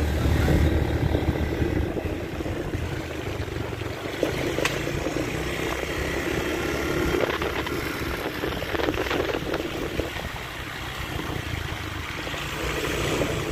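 Motorcycle engine running steadily, with the even hiss of heavy rain.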